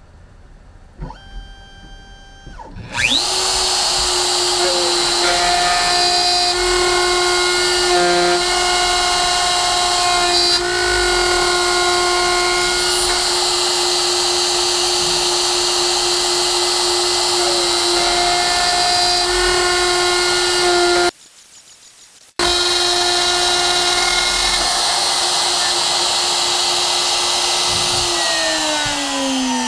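Motor of a metalworking machine tool spinning up about three seconds in, then running at a steady pitch with cutting noise coming and going, and winding down with a falling pitch near the end. The sound drops out for about a second two-thirds of the way through.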